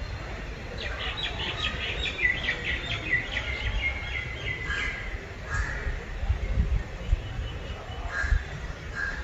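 Birds calling: a fast run of repeated chirps for about four seconds, then scattered short calls. A low rumble with a few thumps lies underneath, strongest near the end.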